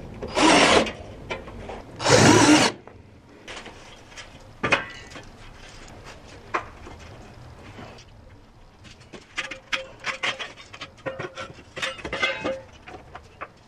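Work handling noise: two loud rasping scrapes in the first three seconds, then scattered knocks, clicks and short rubbing sounds.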